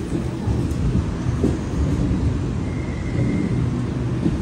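Sydney Trains double-deck electric suburban train running close by at the platform, a steady low rumble of wheels and traction equipment, with a faint brief high whine about three seconds in.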